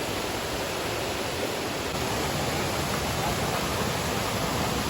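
Steady rush of water falling and pouring at a waterfall, an even hiss with no breaks.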